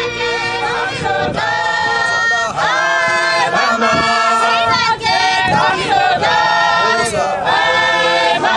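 Background music with a choir of voices singing.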